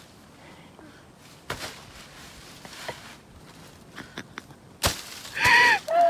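A bouldering crash pad thrown down a rocky slope lands with a single sharp thud near the end, after a few faint clicks and knocks of stones underfoot; a short wordless vocal cry follows right after the impact.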